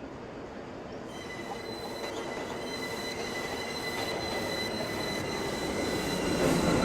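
R179 subway train running on the rails, with steady high squealing tones from the wheels starting about a second in. The running noise grows louder throughout, and a lower tone joins near the end.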